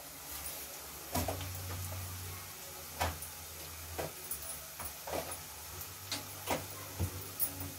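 Kitchen clatter: light, irregular knocks and clicks of metal utensils, over a faint steady hiss.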